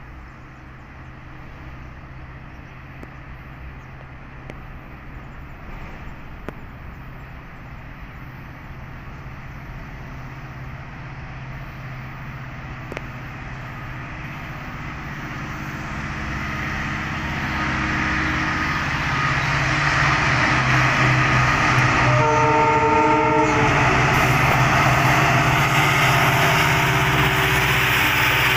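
Diesel locomotive hauling a freight train approaching, its engine drone growing steadily louder. Near the end it sounds a short chord horn blast of a second or two, and the rumble of the locomotive and wheels swells as it comes up close.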